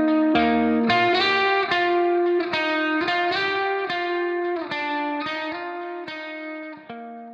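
Background music: a guitar plucking a repeating pattern of chords, gradually fading out over the last few seconds.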